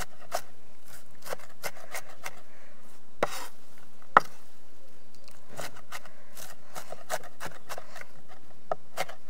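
Kitchen knife chopping onion, chilli and coriander together on a wooden cutting board: irregular knocks of the blade on the wood, a few a second, with one sharper knock about four seconds in.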